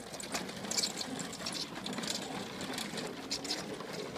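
Walk-behind lawnmowers being pushed fast across a dry lawn: a steady mechanical noise with scattered light clicks.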